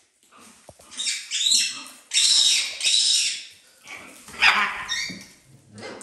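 Loud, shrill animal calls coming in three bursts, with quieter scuffling between them.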